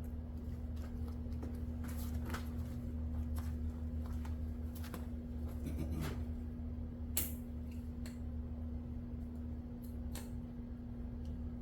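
Scattered light clicks and taps, the sharpest about seven seconds in, over a steady low hum.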